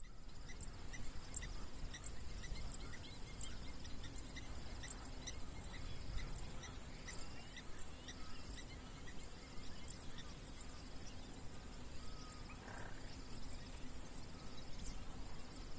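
Outdoor ambience with a steady low rumble, under a string of short high chirps from small animals, at times about two a second, and one longer call near the end.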